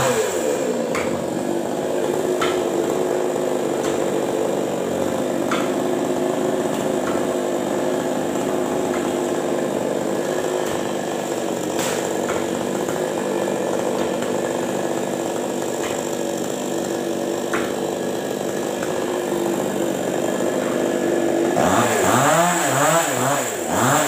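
Two-stroke chainsaw running at a steady pitch, then revved up and down repeatedly near the end.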